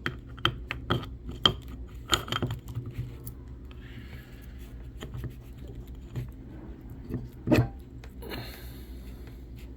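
Small metal parts of a manual 4x4 locking hub clicking and clinking as they are handled and fitted back together, a quick run of clicks in the first three seconds, a short scrape, then one heavier knock about seven and a half seconds in.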